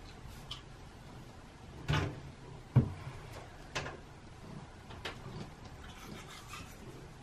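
A few light knocks of a wooden cabinet door being bumped as the cat rubs along it, the sharpest nearly three seconds in, over a low steady hum.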